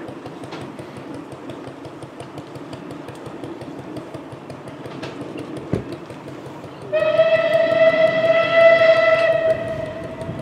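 A steam locomotive's whistle blown once: one steady note held for about two and a half seconds, starting about seven seconds in, over a low steady rumble, with a single knock shortly before it.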